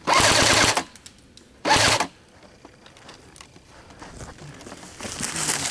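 JG G3 electric airsoft rifle firing two full-auto bursts, a longer one of under a second and then a shorter one. A rustling noise builds up near the end.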